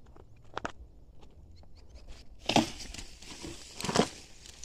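Rustling and scuffing handling noise with a few light clicks, then two louder rough scuffs about two and a half and four seconds in.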